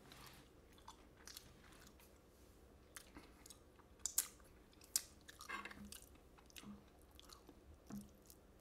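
A man chewing food close to the microphone: faint, wet mouth sounds with scattered sharp clicks, the loudest about four and five seconds in.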